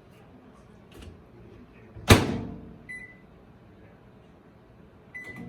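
A microwave oven door shut with a loud clunk about two seconds in, followed by short keypad beeps, one about a second later and another near the end.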